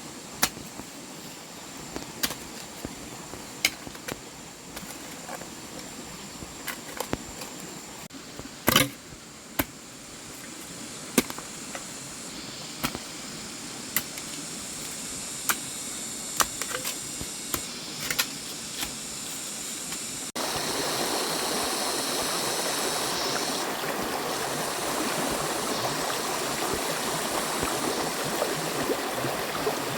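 A steady rush of running water with scattered sharp clicks and knocks. About twenty seconds in, the sound cuts abruptly to a louder, even rush of water.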